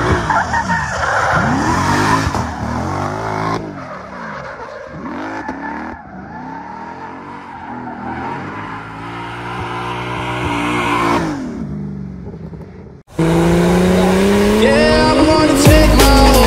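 Turbocharged BMW E30 drift car's engine revving up and down again and again as the car slides, with tyres squealing. About thirteen seconds in it cuts off suddenly and loud music starts.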